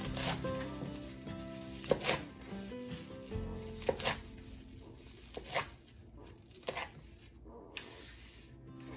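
Kitchen knife chopping food on a cutting board: separate sharp cuts, some in quick pairs, a second or two apart, over soft background music.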